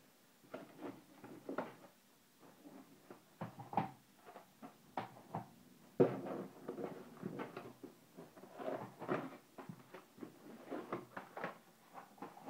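Small cardboard boxes of firecrackers being lifted out of a larger cardboard carton and set down: irregular scrapes, slides and knocks of cardboard on cardboard, with the loudest knock about six seconds in.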